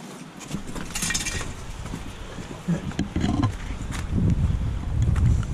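Wind buffeting the microphone, building up from about half a second in, with footsteps crunching on leaf litter and gravel.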